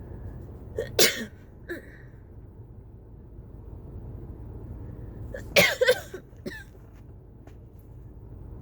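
A person coughing in a cough-variant asthma attack: a sharp cough about a second in with a weaker one after, then a quick burst of two or three coughs past the middle and one more shortly after.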